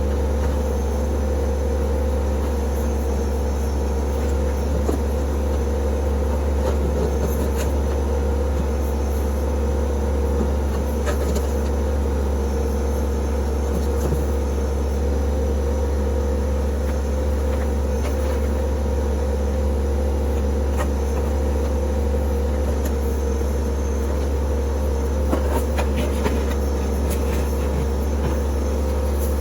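TYM T264 compact tractor's diesel engine running steadily, with a few faint clicks and clanks scattered through, loudest near the end.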